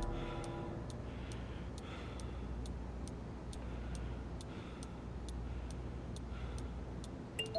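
Clock ticking steadily, about two ticks a second, over a faint low hum. A few soft musical notes come in near the end.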